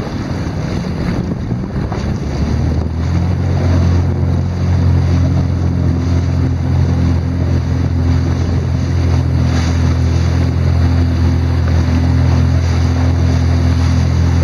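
Jet ski engine running. About three seconds in it picks up and settles into a steady drone, with wind buffeting the microphone and water rushing past.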